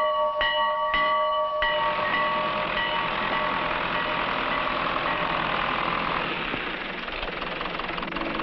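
A large hand-rung farm bell struck over and over, about twice a second, stopping about a second and a half in; its ringing then fades under a steady engine-like noise, which dies down near the end.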